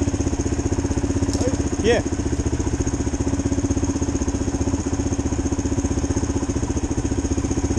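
Single-cylinder four-stroke dual-sport motorcycle engine running steadily at an even speed, with a fast, even pulse.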